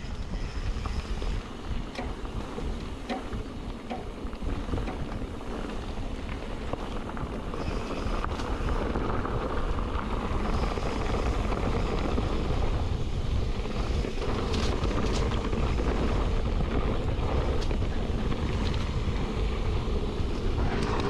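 Mountain bike descending a bumpy dirt trail at speed: wind buffeting the microphone, tyres rolling over dirt, and scattered knocks and rattles from the bike over bumps. The sound grows steadily louder as the ride goes on.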